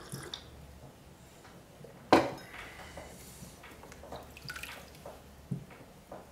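Water dripping and splashing in a potter's slip-water bucket as a hand dips into it, among small clicks of tools. A single sharp knock about two seconds in is the loudest sound.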